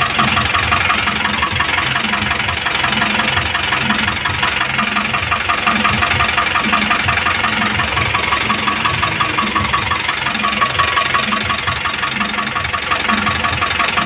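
Isuzu 4BC2 four-cylinder diesel engine idling steadily with a slight knocking, which the owner says shows up when it idles.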